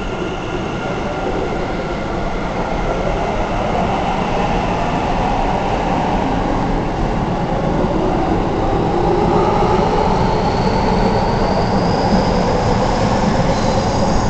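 Keikyu 1000 series eight-car stainless-steel electric train pulling away from the platform and accelerating past, growing louder as it goes. The electric traction motors give a whine that rises slowly in pitch over the rumble of wheels on rail.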